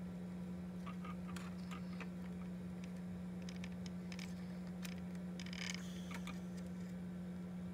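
Scattered light clicks and taps from hands handling the plastic platform, battery and wire connectors of an RC car chassis, thickest a little past the middle, over a steady low hum.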